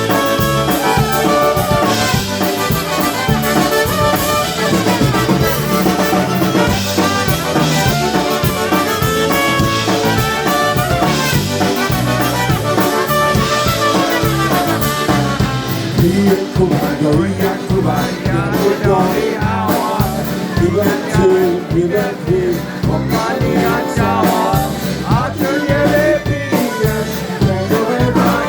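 Polka band playing live, an instrumental passage with brass prominent over a steady beat.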